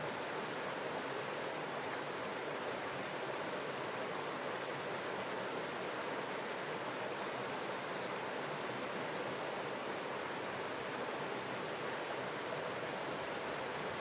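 A shallow stream running steadily over stones, an even, unbroken rush of water.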